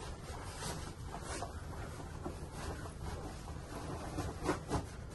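Bed linen and a thick, heavy duvet rustling and swishing as they are handled and tucked in, in irregular strokes with two louder swishes near the end, over a steady low hum.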